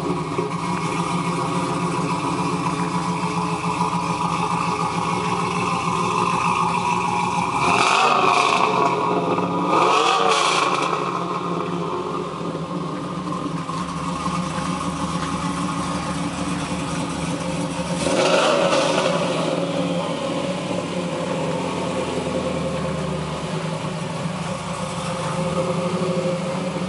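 2002 Pontiac Trans Am WS6's LS1 V8, with ported LS6 heads, a custom-grind camshaft, full-length headers and a custom exhaust, idling steadily and revved briefly three times, about eight, ten and eighteen seconds in.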